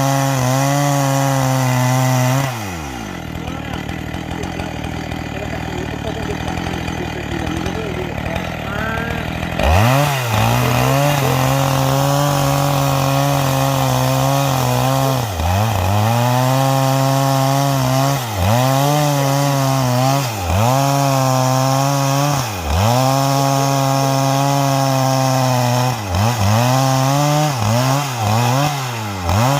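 Two-stroke chainsaw with square-ground chain cutting garapa wood at full throttle. About two and a half seconds in, the engine drops to a low idle for some seven seconds, then revs back up and runs on. From the middle onward its pitch dips sharply and recovers several times, more often near the end.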